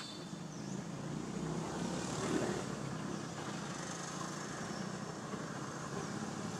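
Steady outdoor background noise: a low rumble with a hiss above it, with no distinct events.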